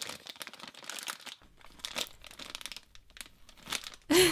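Plastic toy packaging bag crinkling as it is pulled open and handled, a run of irregular crackles.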